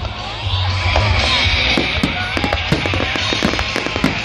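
Aerial fireworks bursting in quick, irregular succession over music with a steady bass line. A hiss joins from about a second in.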